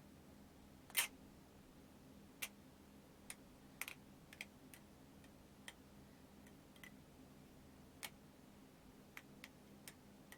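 OSP Matrix balisong (butterfly knife) being flipped: scattered, irregular metallic clicks as the handles and blade swing on their pivots and knock together. The loudest click comes about a second in.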